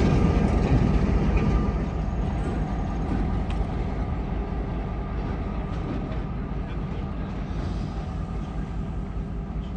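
Diesel locomotives of a short consist led by an EMD GP7 rumbling as they move along the track, loudest at first and fading over the first two seconds, then a steady, more distant diesel rumble.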